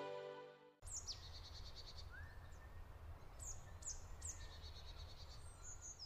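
Background music fades out within the first second, leaving woodland ambience: small birds calling several times, each call a quick high falling note followed by a run of rapid short notes, over a low steady rumble.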